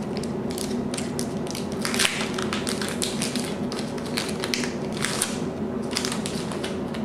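A foil trading-card pack wrapper crinkling and crackling as it is torn open by hand, then the cards being slid out of it, with a steady low hum underneath.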